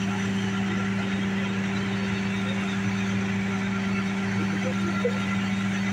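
Engine idling with a steady, unchanging low hum, over faint street noise.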